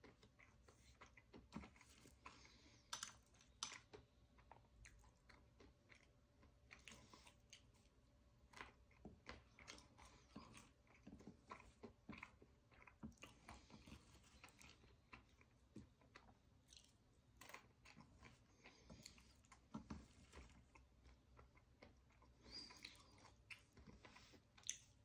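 Faint chewing and crunching of nuts and seeds, with scattered small clicks as fingers pick pieces off a ceramic plate.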